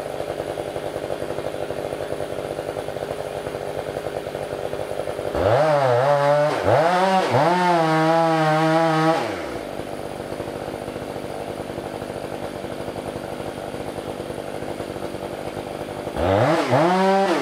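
Stihl 500i two-stroke chainsaw idling, then opening up to full throttle twice for a few seconds each time, about five seconds in and again near the end, its pitch dipping and wavering before settling back to idle in between.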